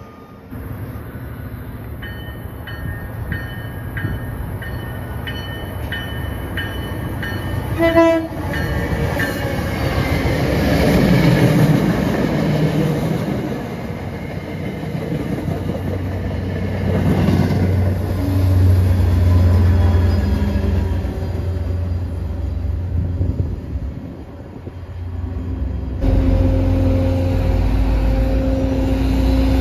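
Train horn sounding a rapid string of short blasts, then a train running through the station with loud rushing wheel and rail noise. A steady low hum sets in abruptly near the end.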